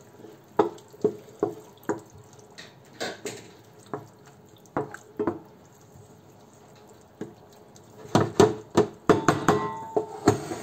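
Wooden spoon stirring a bubbling sauce in a frying pan on high heat while the wine reduces, giving irregular wet knocks and pops two or three times a second, with a quieter stretch midway. Near the end a stainless steel pot is handled on the hob: a quick cluster of metallic clatter with a brief ring.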